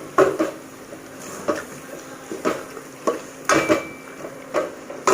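A metal spoon scraping and knocking against a cooking pot as a thick onion-tomato masala is stirred to keep it from sticking to the bottom, about a dozen irregular clicks and scrapes.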